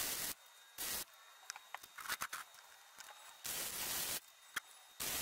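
Flux-core wire welding arc crackling in short bursts: a brief burst at the start, another about a second in, and a longer one at about three and a half seconds, with scattered faint ticks in the pauses between.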